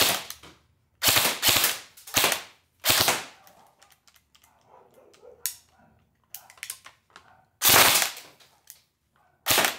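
Electric airsoft M4 rifle on a fully charged 3S LiPo firing about six short bursts of a few rapid shots each, with quiet gaps between, and a few faint clicks in a quieter stretch midway. On semi-auto the gun fires two-round bursts instead of single shots before its trigger locks up.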